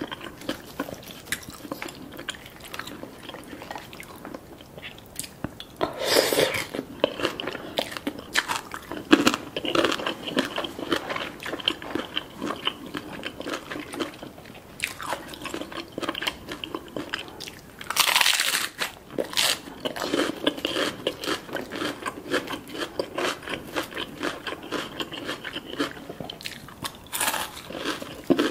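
Close-miked chewing and crunching of a spicy papaya salad with crispy chili chips and fried chicken skin, wet chewing broken by a few louder crunchy bites.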